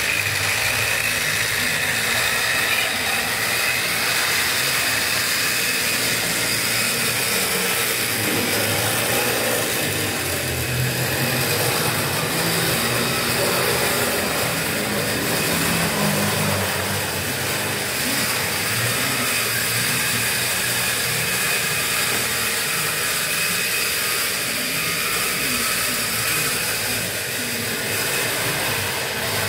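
Model railway train running on the layout's track: a steady mechanical hum from the miniature locomotive and its rolling wagons.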